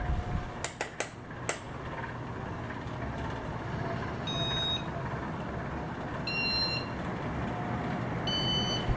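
Many ceiling fans running together: a steady hum with a rush of moving air. A few sharp clicks come about a second in, and three short high beeps sound about two seconds apart in the second half.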